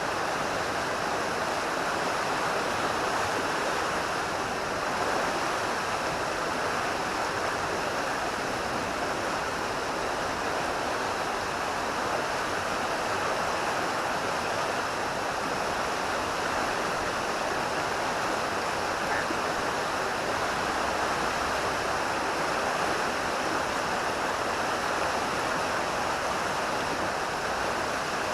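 Steady rushing of a river running high, an even wash of flowing water with no changes.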